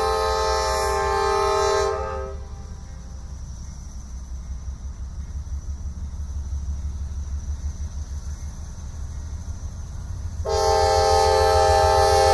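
Locomotive air horn sounding a multi-note chord that cuts off about two seconds in and blasts again about ten and a half seconds in. Under it runs the low, pulsing rumble of GE Dash 9 (C44-9W) diesel locomotives with 16-cylinder engines, working hard to start a long container train.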